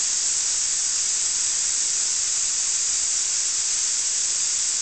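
Compressed air hissing out of a vintage twin-stage Dunlop air compressor's tank as its pressure of about 120 psi is released. It is a loud, steady hiss.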